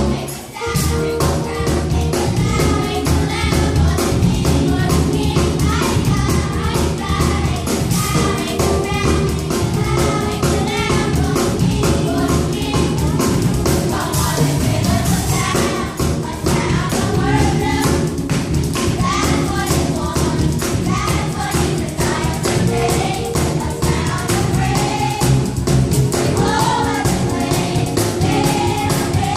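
Church youth choir singing a gospel song over a live band, with percussion keeping a steady beat.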